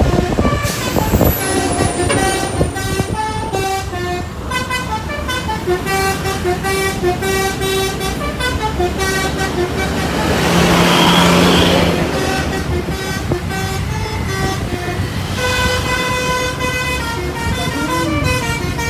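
Bus telolet basuri horn with a pianica-like tone playing a melody of short stepped notes. Partway through, a loud rushing noise rises and fades over about two seconds, with a low rumble underneath throughout.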